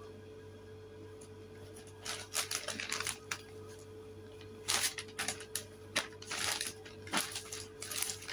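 A thin plastic shopping bag and its wrapping rustling and crinkling in short bursts as they are handled, starting about two seconds in. A steady low hum runs underneath.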